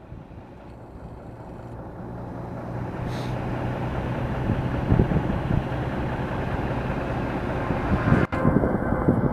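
Boeing 737-700's CFM56 jet engines at departure power, a steady rush that grows louder throughout as the airliner departs, with an engine whine coming through near the end.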